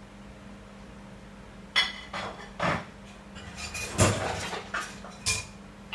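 A drinking glass of water being handled: a series of sharp knocks and clinks, some with a brief glassy ring, from about two seconds in, the loudest about four seconds in.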